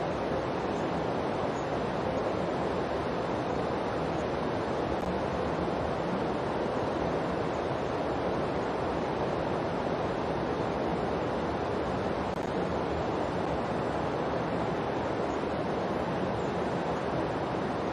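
A steady, even rushing noise like surf, with no rise or fall in level: the calm background sound bed of a subliminal audio track.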